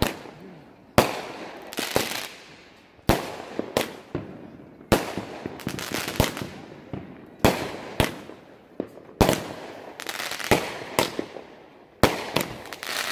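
Consumer aerial fireworks going off in quick succession: a string of about a dozen sharp bangs, roughly one a second, each with a short fading tail.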